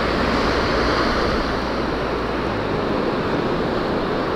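Ocean surf washing steadily onto the beach, with some wind on the microphone.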